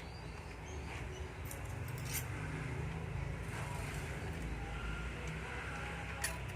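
A few small sharp clicks and taps from clock hands being pressed onto the spindles of a battery clock movement, over a steady low background rumble.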